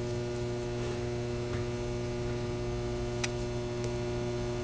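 Steady electrical mains hum, a low even buzz, with one faint click about three seconds in.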